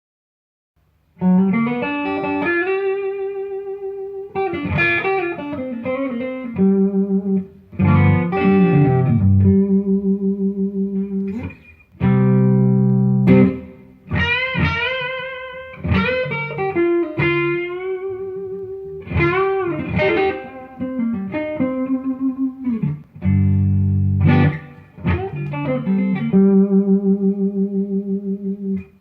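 2016 Gibson Les Paul R8 (1958 reissue) electric guitar played with overdrive through a Friedman Dirty Shirley Mini amp, Joyo Vintage Overdrive pedal and a 1x12 cab with a Celestion Creamback speaker. It plays lead phrases of held notes with string bends and vibrato, starting about a second in, with short breaks between phrases.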